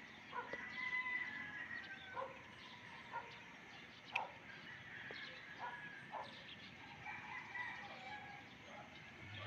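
A rooster crowing: one long crow starting about half a second in and another near the end, with short bird chirps in between.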